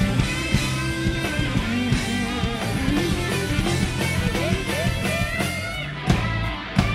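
Live rock band playing an instrumental passage: electric guitar over bass and drums, the lead line bending and sliding in pitch, with hard drum hits near the end.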